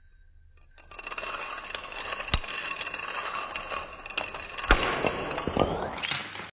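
Dominoes toppling in a chain around a spiral on a stone countertop. After a quiet first second there is a continuous rapid clatter of dominoes knocking over one another for about five seconds, with a few louder clacks.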